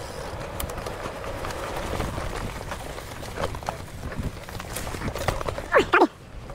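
Mountain bike riding over a concrete path and down steps: frame and drivetrain rattling with irregular clicks and knocks over a low rumble of tyre and wind noise. Near the end, a loud short pitched sound falls in pitch.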